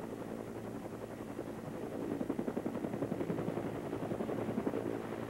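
Helicopter running in flight, heard from on board: a steady engine and rotor hum with a rapid rhythmic chop of the rotor blades that grows louder about two seconds in.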